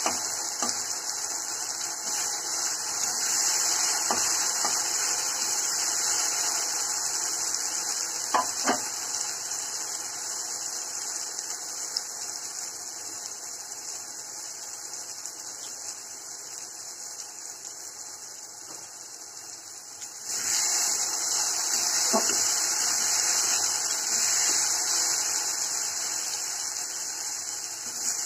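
Chopped onions frying in oil in an aluminium kadai, a steady sizzle with a few sharp knocks of the spatula against the pan. The sizzle dies down in the middle and comes back louder about twenty seconds in.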